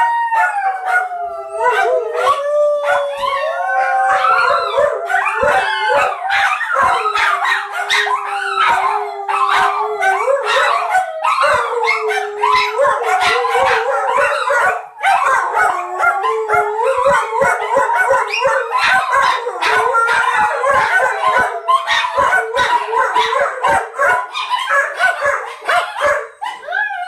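Several pet dogs howling together, many voices overlapping and sliding up and down in pitch, with short sharp clicks scattered throughout.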